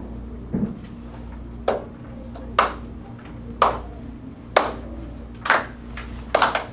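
Students beating out a slow, steady rhythm with their hands in a classroom, about one sharp strike a second, growing louder, with a quick run of three strikes near the end. It is the count-in beat before a group song.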